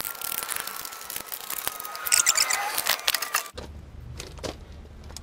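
A ratchet on a long extension working the bolts of a Jandy variable-speed pool pump: scattered clicks with a long, thin squeal that slowly falls in pitch. About three and a half seconds in the sound cuts off abruptly to a low hum with a few faint knocks.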